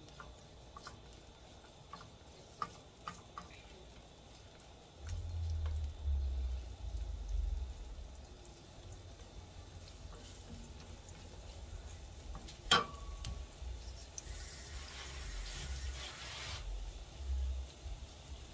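Chopped garlic sizzling faintly in oil in a nonstick frying pan while a silicone spatula stirs, scrapes and taps the pan. One sharp click about two-thirds of the way through, followed by a louder hiss for about two seconds.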